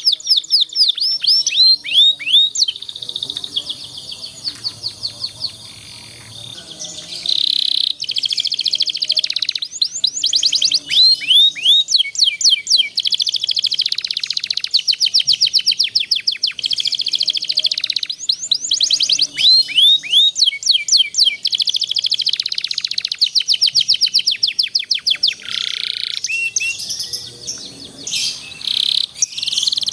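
Canary singing long, rapid trills and rolls, with runs of quick downward-swooping notes. The song dips to a quieter stretch about three seconds in and comes back loud around seven seconds. This is master song for young canaries to learn from.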